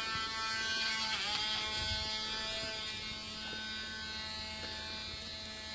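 Cordless Dremel rotary tool, the kind used as a dog nail grinder, running steadily with a high buzzing whine; its pitch dips briefly about a second in.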